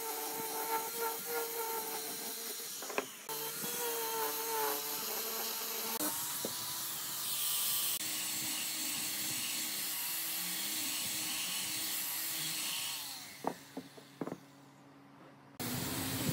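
Handheld electric die grinder fitted with a sanding drum, running and sanding the curved edge of a wooden bracket: a steady motor whine with the scratchy rub of the drum on wood. About thirteen seconds in the grinder winds down, followed by a few light knocks.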